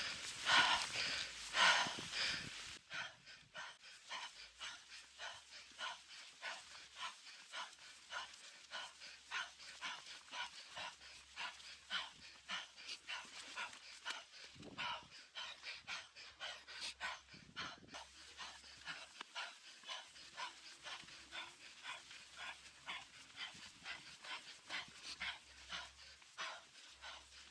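A mountain biker panting hard from the effort of a climb: rapid, rhythmic breaths about two a second, loudest in the first few seconds.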